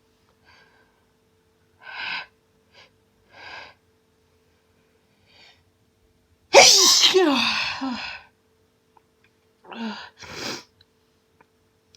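A woman's hay-fever sneeze: a few short intakes of breath, then one loud sneeze about halfway through, followed by two quick breaths near the end.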